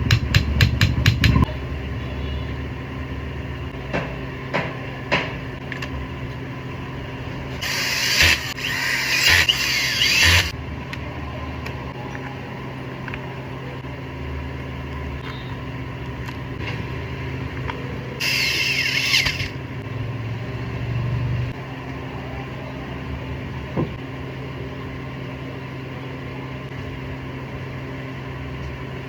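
801 grinder, which has a gear problem, running with a steady hum. A quick run of sharp ticks comes in the first second, and two bursts of harsh, bright grinding noise come about eight and eighteen seconds in.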